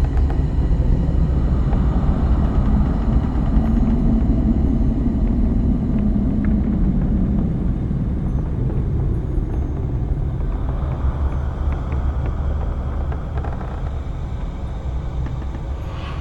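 Deep, steady rumbling drone of dark horror ambience, with a low moaning swell rising and falling a few seconds in and a slow fade toward the end.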